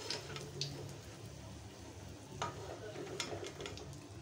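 Gram-flour-battered stuffed green chilli pakoras sizzling faintly in hot oil as they are lifted out of the kadai with a steel slotted spoon, with a few light clicks of the spoon against the pan.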